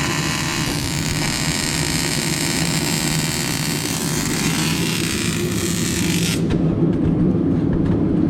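Welding arc hissing and crackling steadily, stopping abruptly about six seconds in, over a steady low hum that continues throughout.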